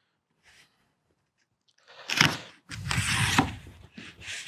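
Crumpled brown kraft packing paper rustling and crunching as it is handled and pulled from a cardboard box. It comes as a loud rustle about two seconds in and a longer one right after, following a nearly silent first half.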